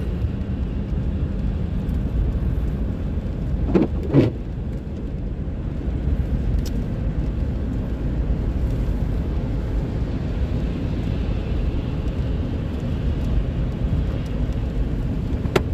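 Steady road and tyre noise of a car driving on a wet highway, heard from inside the cabin, with two short sounds about four seconds in.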